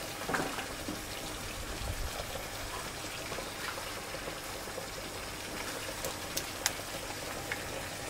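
Ground beef sizzling steadily in a frying pan over a gas burner, with a few sharp clicks as diced vegetables go into the pan.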